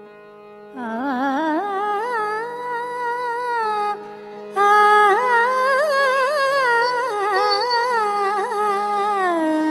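Carnatic music: over a steady drone, a singer sings long wordless notes with wide sliding ornaments (gamakas), in two long phrases. The first phrase starts about a second in; the second follows a short break near the middle.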